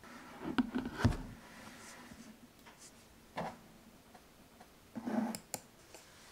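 Handling sounds on a desk: knocks and a low thump about a second in as an iMac is shifted by its stand, then a short knock and a cluster of light clicks as the keyboard and mouse are put in place.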